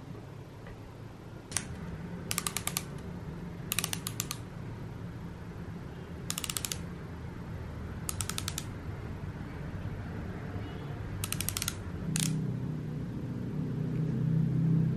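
Plastic twist-up lip crayons being handled, uncapped and twisted: six short runs of quick ratchet-like clicks, each about half a second long, with a few single clicks in between. A low hum grows louder near the end.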